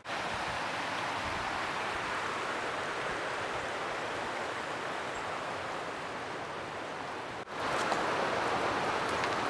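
Steady rushing of a mountain river, the Tuckasegee, a sound like distant traffic. It dips for a moment about seven and a half seconds in and comes back slightly louder, with faint light crackles.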